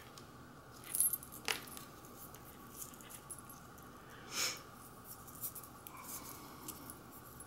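Faint handling sounds of a metal paper clip and a stiff glitter-canvas bow being worked in the hands: light metallic clicks and ticks, the sharpest about a second in, and a soft brushing sound a little past halfway.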